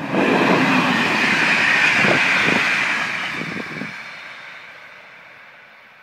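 Green Cargo Rc4 electric locomotive and its train of mail vans passing close by at speed: a loud rush of wheels on the rails with a few knocks from the wheels. It fades away from about three seconds in as the train recedes.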